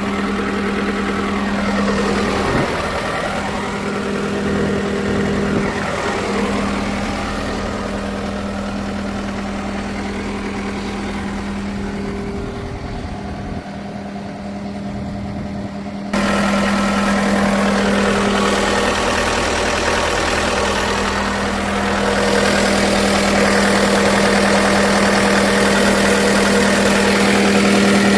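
Diesel engine of a John Deere 325G compact track loader running at idle, steady, with a sudden step up in loudness about sixteen seconds in.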